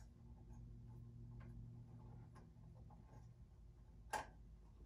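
Near silence with faint clicks from hands handling the metal desk frame parts, and one sharper click or knock about four seconds in. A low steady hum sits underneath for the first three seconds.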